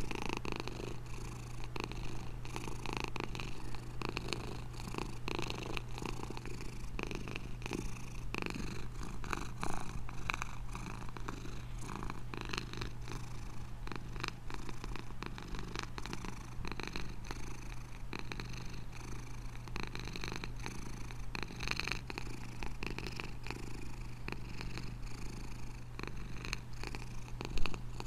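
Domestic cat purring steadily, with a louder sound about ten seconds in and another near the end.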